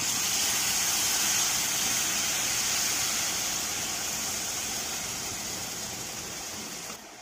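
Milk poured into a hot pan of ghee-roasted moong dal and semolina, sizzling with a steady hiss that slowly eases and then drops away sharply near the end.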